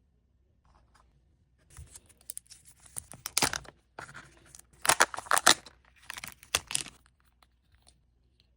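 Crinkly plastic wrapper of a Kinder Joy being torn open and crumpled by hand, in a series of quick rustling tears over several seconds.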